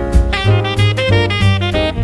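Upbeat jazzy background music with saxophone over bass and drums.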